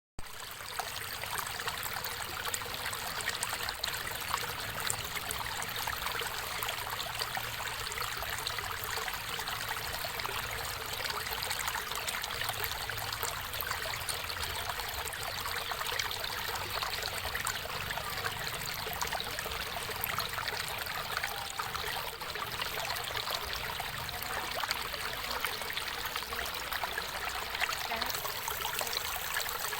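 Water running in a stream: a steady, even rush with many small splashes and trickles throughout.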